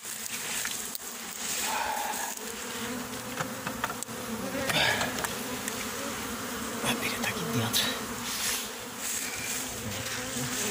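A honeybee swarm buzzing steadily, with single bees now and then sweeping close by in a rising and falling drone.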